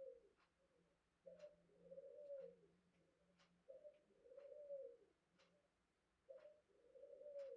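Dove cooing faintly in the background: a low, arched coo about every two and a half seconds, three in full.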